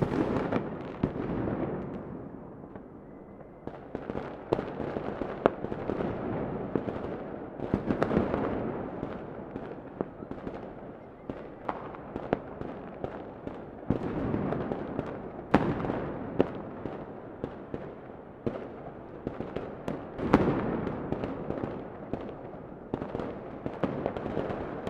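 Many fireworks going off at once, New Year's midnight style: a continuous rumble of overlapping bangs with many sharp cracks and pops, and louder swells of booms every few seconds.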